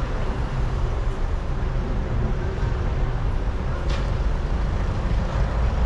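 Steady low rumble of city street traffic noise, heaviest in the bass.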